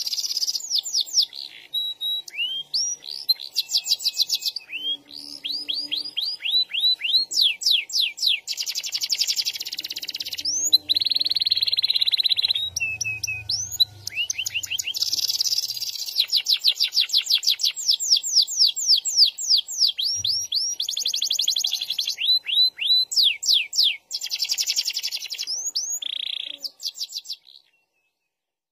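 Domestic canary singing a long, varied song of fast rolling trills and rapid runs of repeated sweeping notes, with a steady held note about midway. The song stops shortly before the end.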